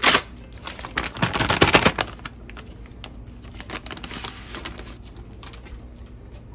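Hands handling a new chainsaw starter pull rope: a sharp knock at the start, a burst of quick clicks and rustling about a second in, then fainter rustling.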